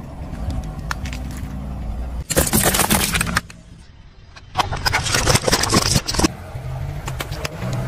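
Car engine running low and steady as the car creeps forward, with two loud bouts of dense crackling and crunching as its tyre rolls over and crushes small plastic drink bottles, the second bout a little over a second after the first.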